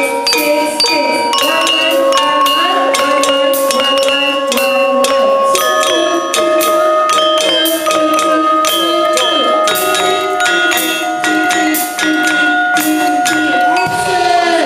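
Gamelan ensemble of bronze metallophones playing a piece together: many mallet-struck bars ringing and overlapping in a steady pulse.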